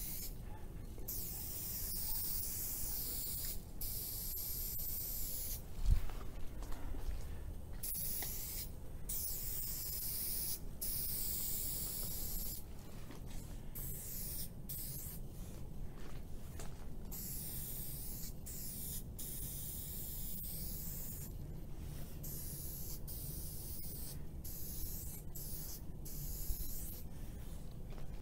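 Aerosol spray paint cans spraying in many short bursts, a high hiss that starts and stops with brief pauses between strokes. A single thump about six seconds in.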